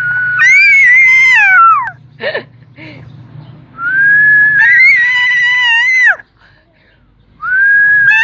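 A toddler's high, whistle-like squeals: three long held notes, each ending in a falling glide, with a few short softer squeaks between the first two.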